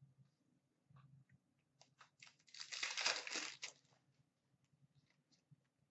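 A foil trading-card pack being torn open: one crinkling rip lasting about a second, with light clicks and rustles of cards and wrapper being handled before and after it.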